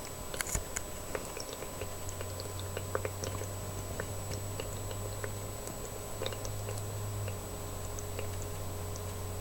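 Ultrasonic cool-mist diffuser running, its water bubbling in small irregular pops and ticks over a low steady hum.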